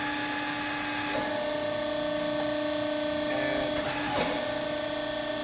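Hydraulic pump of a 90-ton Pacific CNC hydraulic press brake running with a steady whine as the ram makes a single stroke down; the whine's pitch changes about a second in, and there is a short click about four seconds in.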